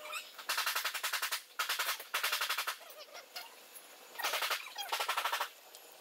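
A hand blade scraping along the lower edge of a cracked car windshield in four short rasping strokes, each a rapid chatter lasting about half a second to a second, with a pause near the middle.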